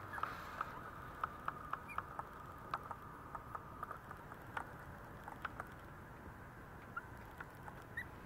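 Three-week-old Maltese puppies shuffling over a pet sheet: soft scratching and scattered light ticks of their paws and claws, with a few brief, faint high squeaks.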